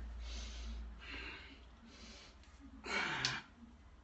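A man breathing hard from exertion while doing slow pistol squats. There are three noisy breaths, the last and loudest about three seconds in.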